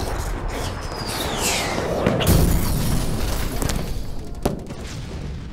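Tense film sound design: a dense, rumbling wash with booming low hits about two seconds in and a falling whistling glide just before them, fading toward the end.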